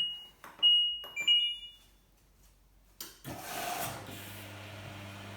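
LG washer dryer's control panel beeping in two short tone groups, then about three seconds in a click and the newly fitted dryer fan starting up with a rush of air that settles into a steady hum. The replacement fan runs freely, where the failed one had been stiff.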